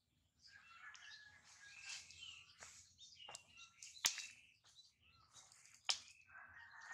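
Faint high chirping of small birds, scattered throughout, with two sharp clicks about four and six seconds in.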